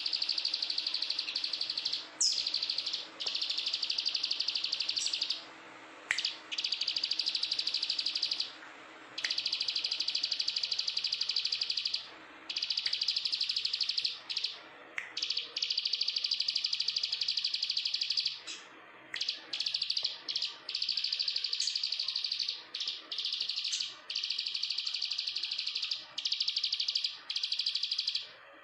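Plain prinia (Prinia inornata) singing: bouts of very rapid, buzzy trilled notes, each bout a couple of seconds long, repeated over and over with short pauses between them.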